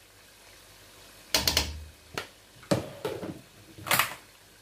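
Clicks and knocks from a plastic measuring spoon tapping as half a teaspoon of turmeric powder is added to the pan. First a short cluster of knocks with a low thump, then single sharp taps about every half second.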